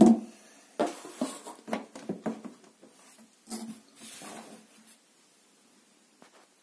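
Cardboard box and plastic parts being handled: a loud knock at the start, then a run of knocks and rustling over the next few seconds.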